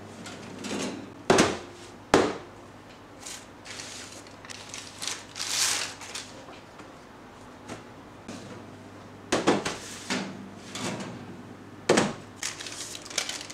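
Metal loaf tins of fresh-baked bread clunking sharply four times as they are taken out and knocked down on the counter to let the steam out, with baking paper rustling between the knocks as the loaves are turned out onto a wire rack.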